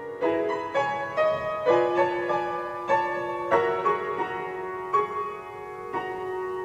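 Background music: a slow solo piano melody, single notes struck about twice a second and left to ring.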